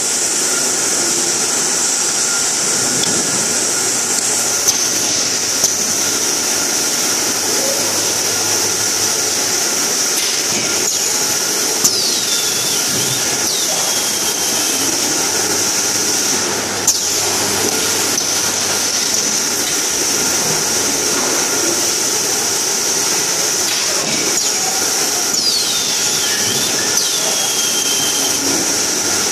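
Bottle conveyor and automatic carton-packing machinery running: a steady high hiss and hum, with a few sharp clicks and two pairs of brief falling squeaks, one pair about twelve seconds in and one near the end.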